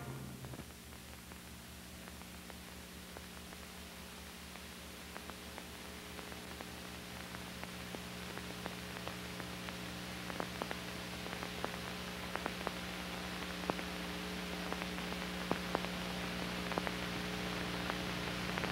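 Background noise of an old film soundtrack: a steady hiss and low hum with scattered clicks and pops, which grow more frequent as the noise slowly gets louder.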